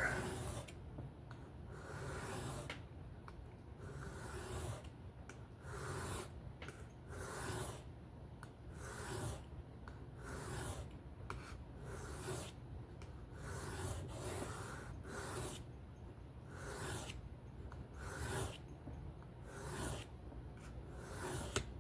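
Steel knife blade being stroked back and forth by hand across a whetstone, a steady rhythm of rasping scrapes at about one to two strokes a second while the edge is sharpened.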